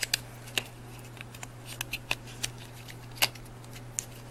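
Hands handling and opening a slim cardboard cosmetics box: scattered light clicks and taps of the cardboard, the sharpest about three seconds in, over a low steady hum.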